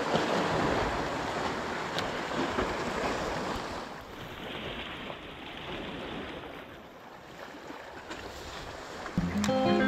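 Sea waves washing against shoreline rocks, with wind on the microphone; the wash drops quieter about four seconds in. Music starts near the end.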